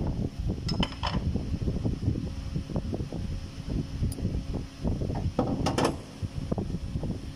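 Irregular metal clicking and rattling from an AC compressor clutch plate and a homemade clutch puller being worked by hand, with sharper metallic clinks about one second in and around five and a half seconds in.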